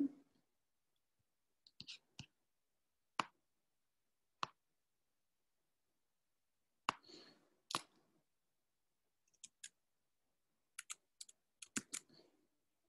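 Scattered, irregular clicks from working a computer, a dozen or so, some in quick pairs and a cluster near the end, heard over a video call with dead silence between them.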